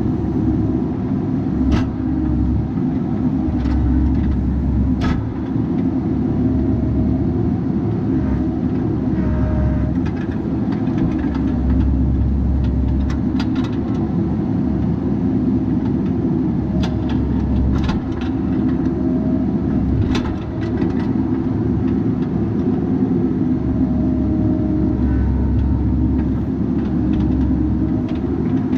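Bobcat 337G mini excavator's diesel engine running steadily while it works, with a low rumble that swells and eases every few seconds. Sharp knocks come through it now and then, about half a dozen in all.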